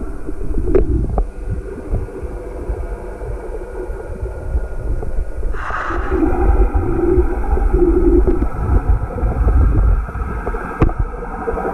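Muffled underwater rumble and water noise, picked up through a submerged camera, with a brief louder surge about halfway through.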